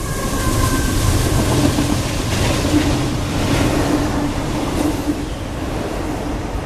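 Double-stack intermodal freight train's well cars rolling past close by: a steady rumble and clatter of steel wheels on rail, with a faint steady tone in the middle.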